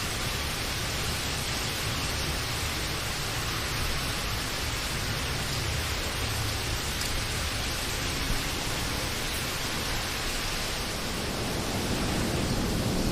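Steady rain, an even hiss of drops with a low rumble beneath it. Near the end the low rumble swells and gets a little louder.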